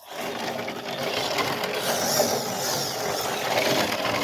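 Electric RC car running on 3S, its motor whining up and down with throttle over the sound of the drivetrain and tyres on rough ground.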